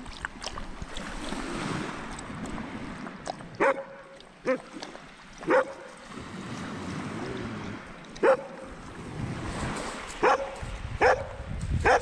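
A dog giving short, sharp barks, seven at irregular intervals, the first about three and a half seconds in.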